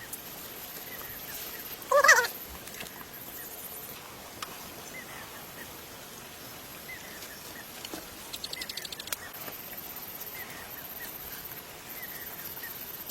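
A single short animal call about two seconds in, over a faint high hiss that keeps switching on and off, with a few faint chirps.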